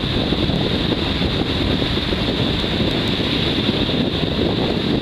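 Wind buffeting the microphone, a steady rumbling noise, over the wash of small surf breaking on the shore.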